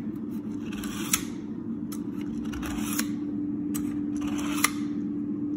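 A kitchen knife blade drawn three times through a Bavarian Edge sharpener's spring-loaded carbide arms. Each pull is a short metallic scrape ending in a sharp click, about every one and a half to two seconds, over a steady low hum.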